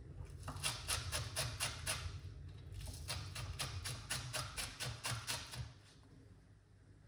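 Kitchen knife chopping onion on a cutting board: quick, even chops about five or six a second, with two short breaks, stopping about six seconds in.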